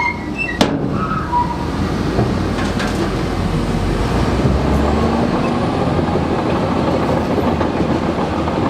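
Bulldozer's diesel engine running steadily, a dense low rumble, with a sharp clank about half a second in and a few brief squeaks in the first second and a half.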